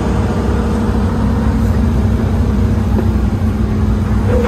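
An old Hitachi excavator's diesel engine running steadily, heard from inside the operator's cab: a constant low drone with a steady hum over it.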